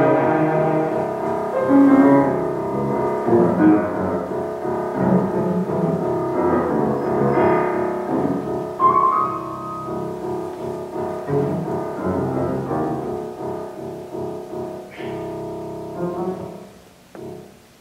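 Cello and piano playing a romantic-style classical duo live, with the piano to the fore; the music grows quieter near the end.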